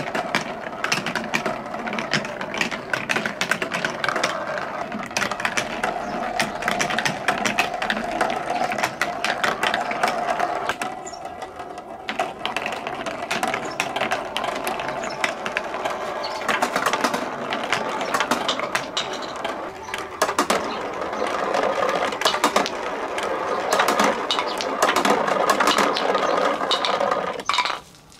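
Several balls rolling and rattling down a TrixTrack marble run and along plastic rain gutters: a continuous rolling rumble crowded with rapid clicks and clacks, which cuts off suddenly near the end.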